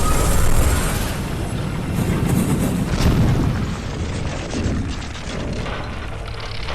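Loud, rumbling explosion sound effects from a battle scene, with a sharp crack about three seconds in and the rumble easing a little after that.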